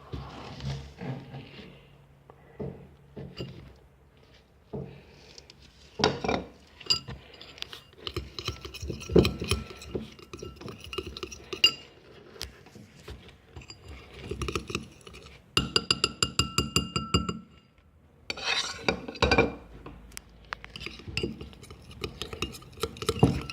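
A stirring utensil clinking and scraping against a glass bowl while a thick slime mixture is stirred. The clinks come irregularly, with a quick run of rapid ringing clinks about two-thirds of the way through.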